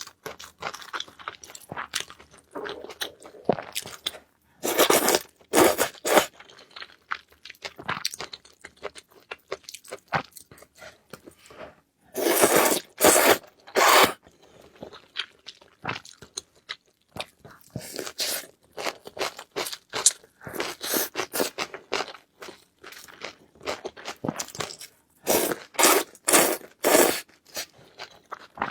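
A person eating with crunching bites and chewing, in irregular bursts, louder at about five seconds in, around the middle and near the end.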